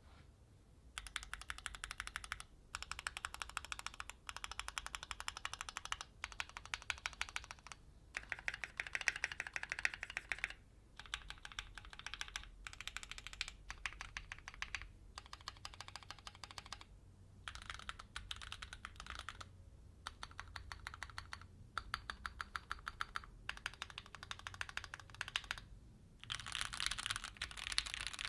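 Keychron Q6 full-size aluminium mechanical keyboard being typed on quickly. The keystrokes come in fast runs of clicks a couple of seconds long, broken by short pauses, starting about a second in.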